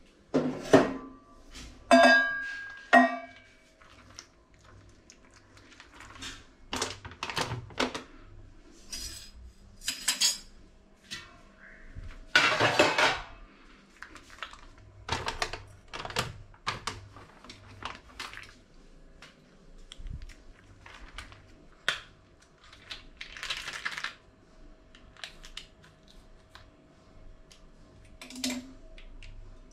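Stainless-steel pots, lids and utensils clinking and clattering as they are handled at a gas stove, with three loud ringing clanks in the first three seconds. Lighter knocks follow, and a longer rustling noise comes about halfway through.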